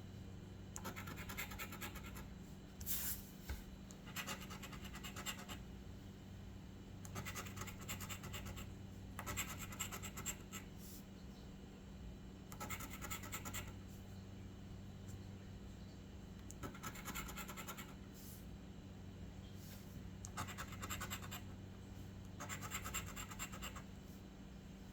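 Scratching the coating off an instant lottery scratch ticket in short bursts of rapid strokes, with brief pauses between, over a faint steady low hum.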